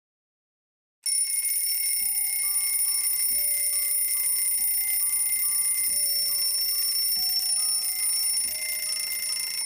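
Twin-bell mechanical alarm clock ringing without a break, starting about a second in and cutting off suddenly near the end.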